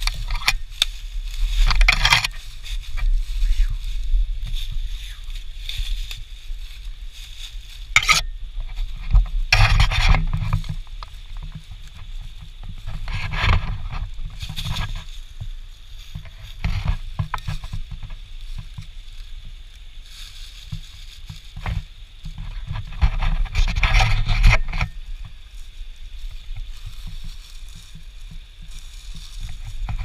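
Footsteps crunching and scuffing through dry leaf litter in irregular bursts, over a steady low rumble of wind and handling noise on the camera's microphone.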